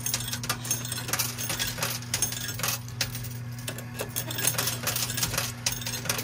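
Coins and tokens clinking and dropping in a coin pusher machine: many quick, irregular clinks over the machine's steady low hum.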